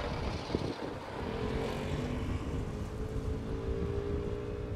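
Wind noise on the microphone, with a distant engine's steady drone coming in about a second in, its pitch sinking slightly.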